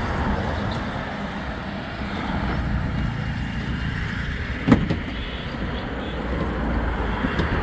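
Road traffic passing on a highway, a steady low rumble and hiss, with a single sharp knock a little past halfway.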